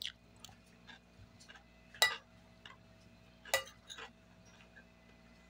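Quiet eating sounds: scattered soft clicks and ticks of a plastic spoon against a ceramic plate and of chewing, with two sharper clicks about two and three and a half seconds in.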